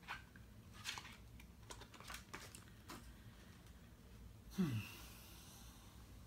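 Booklet pages being turned and handled, with a few soft flicks and rustles in the first three seconds. About four and a half seconds in comes a louder, brief falling sigh-like breath.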